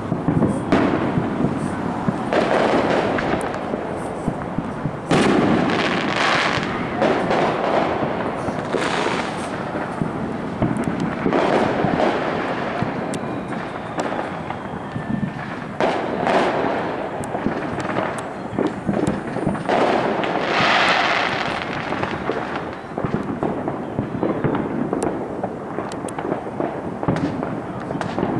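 Fireworks going off in a steady barrage: a big bang every few seconds, each trailing off in a long rumble, over continuous crackling.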